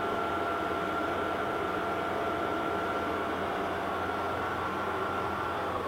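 A machine motor on a Summit 32 x 120 engine lathe running with a steady whine and hum, starting to wind down with falling pitch near the end.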